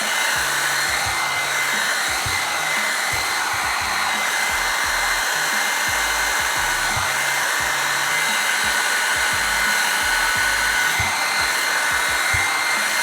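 Revlon One-Step hair dryer brush running steadily: a constant rush of blown air with a steady high-pitched whine from the motor.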